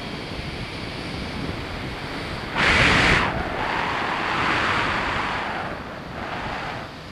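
Wind rushing over the microphone during a parachute descent under an open canopy. A short, loud gust comes about two and a half seconds in, followed by a longer swell and a smaller one near the end.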